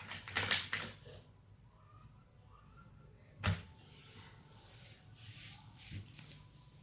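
Faint scratching of a drawing pen on paper, in short strokes, with a sharp knock about three and a half seconds in and a lighter one near the end.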